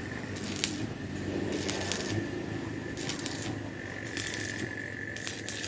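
Intermittent metallic clinking and crackling from metalwork in a welding workshop: about five short bright bursts over a steady high hum.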